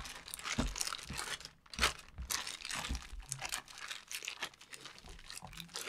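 Plastic piping bag crinkling as it is handled and twisted, an irregular run of short crackles.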